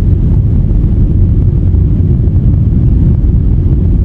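A car being driven along a narrow country road: a steady low rumble of engine and tyre noise.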